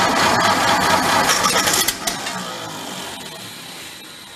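The compressor's four-cylinder gasoline engine cranking on its electric starter during a start attempt, with a hand held over the carburettor as a makeshift choke. The sound is loud for about two seconds, then a click, then it dies away.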